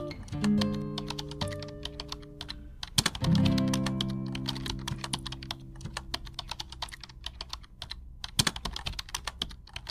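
Rapid computer-keyboard typing clicks, a typing sound effect running along with text being typed on screen. Under them, soft background music chords are struck near the start and again about three seconds in, then fade away, leaving only the clicks.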